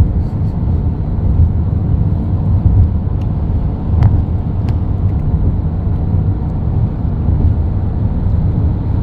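Steady low rumble of a car driving along a highway bridge: tyre and wind noise heard from inside the car, with a faint click about four seconds in.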